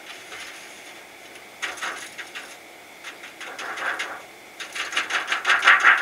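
Scratchy rubbing and rapid clicking from handling the plastic frame and insect screen of a Fantastic Fan roof vent while it is being worked loose. It comes in short spells from about a second and a half in and grows louder and denser near the end.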